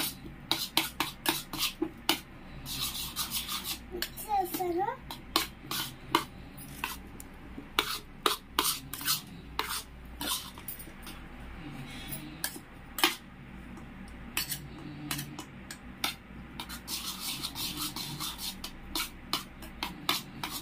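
Metal spoon clinking and scraping against a stainless steel bowl while stirring a wet egg omelet mixture, in quick irregular taps throughout.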